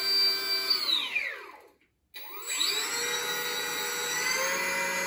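A homemade boat motor, an NTM 750 kv brushless quadcopter motor with a 3D-printed propeller, whining as it spins in air. It winds down to a stop about a second and a half in, then spins back up to a steady whine that steps slightly higher in pitch near the end.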